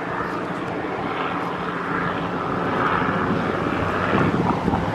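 A steady engine drone with a low hum, slowly growing louder.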